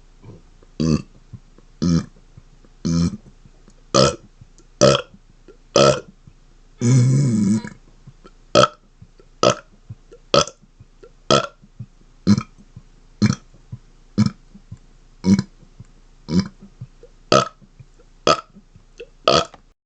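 A man burping over and over: short single burps about one a second, with one longer, drawn-out burp about seven seconds in.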